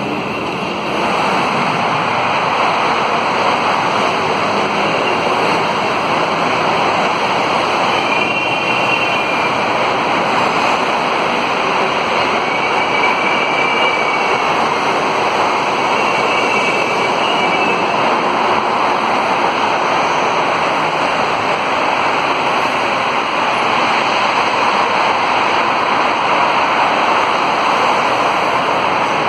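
Steady rushing noise, with faint high whining tones coming and going in the middle.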